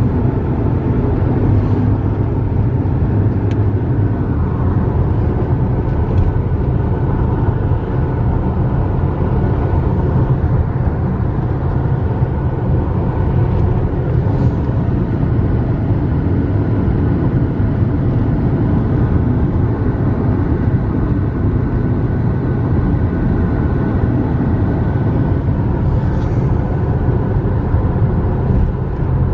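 Steady road noise inside a car's cabin at highway speed: a constant low rumble of the tyres and engine on a concrete road surface.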